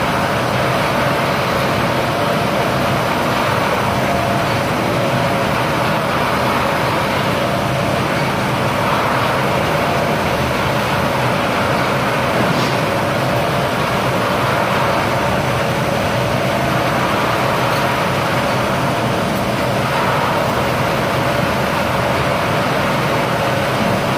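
Puffs snack production line running steadily: a continuous mechanical hum with a few constant tones, from the rotating stainless-steel flavouring drum tumbling yellow maize puffs and the line's motors.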